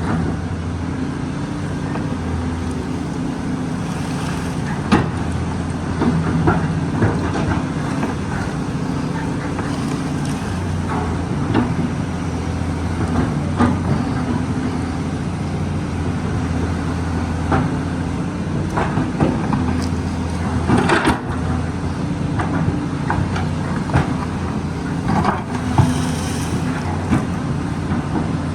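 Caterpillar excavator's diesel engine running steadily under work, with scattered sharp knocks and cracks from the machine working at the tree.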